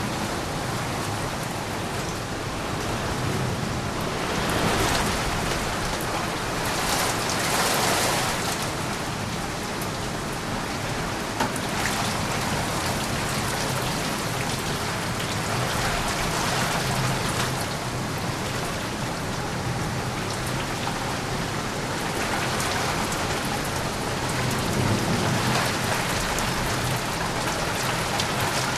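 Steady rain falling, with a few swells of thunder rumbling under it.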